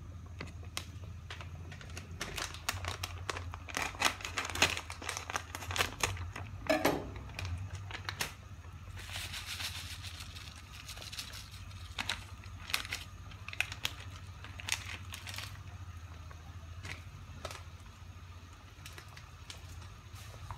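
Foil-lined spice sachet crinkling and being torn open, then the premix powder pouring out into a wok with a soft hiss, followed by scattered crackles. A low steady hum runs underneath.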